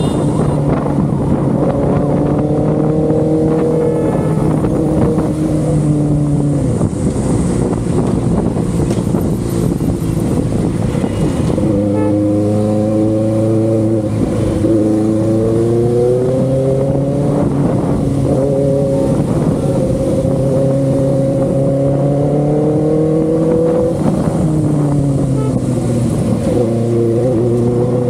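Benelli TNT 600i inline-four engine and exhaust running with a steady pitch, easing off about six seconds in, then picking up again about twelve seconds in and rising and falling gently through the rest.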